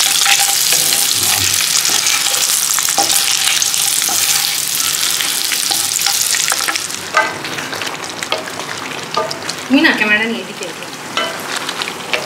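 Mutton sizzling in a pan of fried spice paste as it is stirred and browned, loud for about seven seconds. It then dies down to quieter scrapes and clinks of the spoon against the pan.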